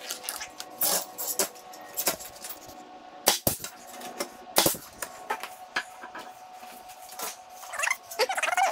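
Pneumatic nail gun firing nails into the corners of a pressure-treated wood frame: about half a dozen sharp shots spread over the first five seconds, the loudest about three and a half seconds in.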